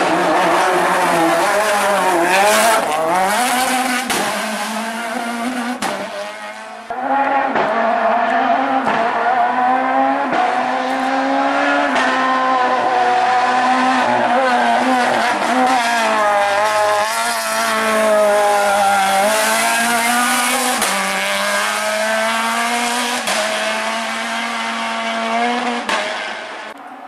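Renault Clio Maxi rally car's four-cylinder engine driven hard at high revs, the pitch climbing and dropping again and again through gear changes and lifts. The sound fades about six seconds in and comes back abruptly a second later.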